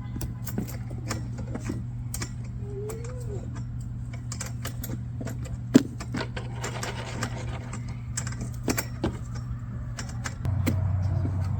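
Garden hose water running into the hollow plastic base of a portable basketball goal as it fills, heard as a steady low hum with irregular clicks and taps. The hum changes pitch near the end.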